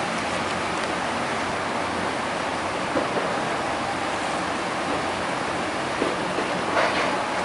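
Covered hopper cars of a freight train rolling through flood water over the tracks: a steady wash of churning, rushing water, with a few brief knocks about three, six and seven seconds in.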